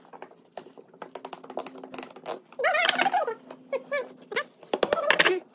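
Small hammer tapping small nails into the thin wooden parts of a toy bullock cart: a run of quick, light taps, with a few harder knocks near the end.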